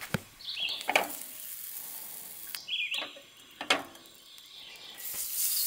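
Butter sizzling in a frying pan on a propane camp stove, the sizzle growing much louder near the end. A few sharp knocks are heard, and a bird chirps twice.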